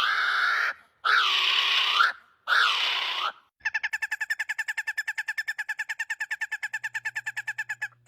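Bird calls: first loud wailing calls that rise and fall in pitch, then a rapid even series of short pitched notes, about ten a second, lasting about four seconds.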